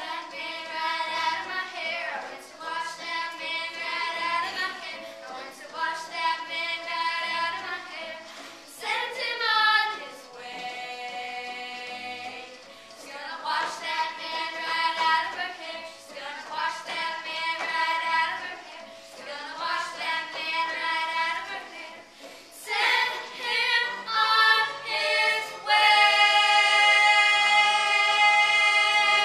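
A chorus of girls singing a show tune together in short phrases, ending on a long, loud held note near the end.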